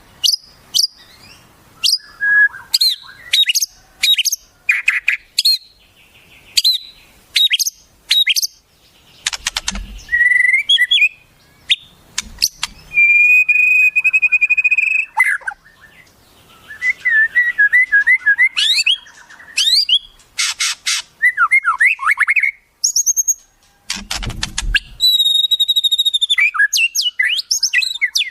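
White-rumped shama (murai batu) singing a varied song of quick chips, sweeping whistles and trills, with a held whistle about halfway through and a fast trill a little later. A few low thumps come in between.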